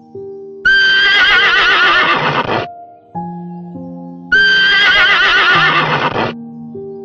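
A horse whinnying twice, each call about two seconds long with a quavering pitch, over background music of sustained notes.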